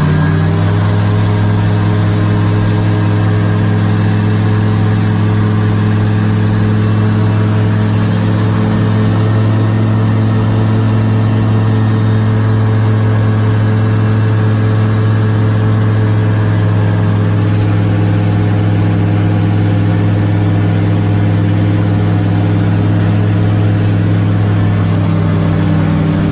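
Light propeller aircraft's piston engine running loud and steady, its pitch holding level.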